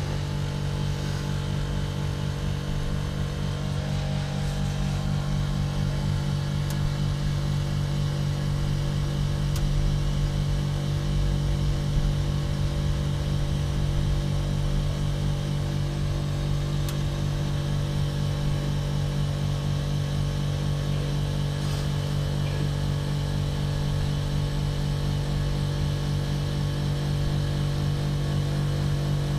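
Compressor of a TCL ductless split air conditioner's outdoor unit running in its defrost cycle with the fan stopped: a steady hum made of many even tones, strongest in the low range.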